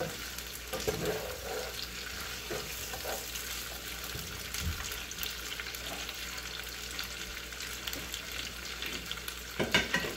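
Chicken and green pepper sizzling in a nonstick frying pan over high heat, with a wooden spatula stirring and scraping through them. A sharper clatter near the end.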